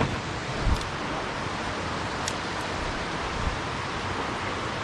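Steady rush of a mountain stream's flowing water, with a couple of light knocks.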